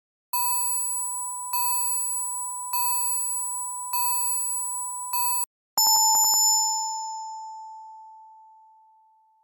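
Samsung SGH-C130 mobile phone ringtones playing: a clean electronic beep repeats five times, about once every 1.2 seconds, and the last one is cut off. After a short break a different tone begins with a few quick clicks and then rings out as one long note that fades away over about three seconds.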